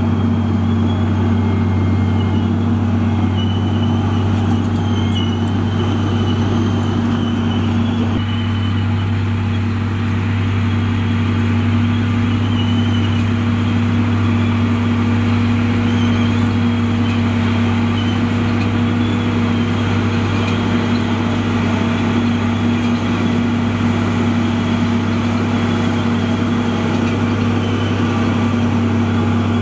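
Komatsu D58E crawler dozer's diesel engine running at a steady, unchanging speed, a deep even drone, with a faint wavering high-pitched squeal over it.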